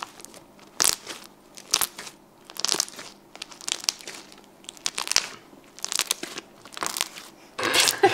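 A large batch of homemade slime, made with shaving foam, being stretched and squeezed by hand. It crackles and squelches in short bursts about once a second.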